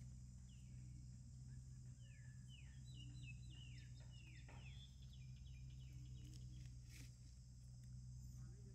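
Faint outdoor ambience with a steady high hiss and a low hum. Through the first half comes a run of short, high, falling chirps, lasting about five seconds.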